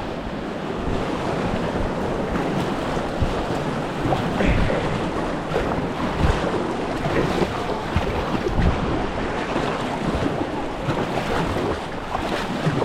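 Rushing, splashing water, with wind buffeting the microphone in irregular low thumps.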